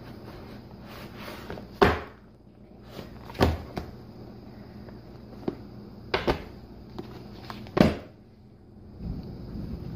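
Sketchbooks being set down one on top of another on a tabletop: four sharp thumps, with quieter handling of the covers and pages between them.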